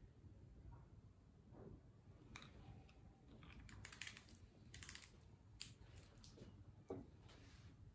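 Near silence: room tone with a few faint, scattered small clicks and taps.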